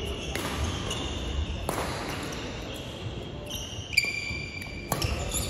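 Sports shoes squeaking on a gym court floor during badminton play, with a few sharp cracks of rackets hitting shuttlecocks, the loudest about four seconds in, ringing in a large echoing hall.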